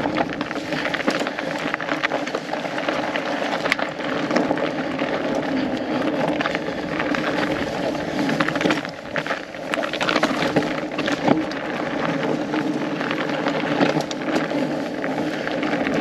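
Studded fat bike tyres rolling fast over frozen, snowy trail: a steady crackling rumble of tyre noise with the bike rattling over bumps and small sharp knocks scattered throughout.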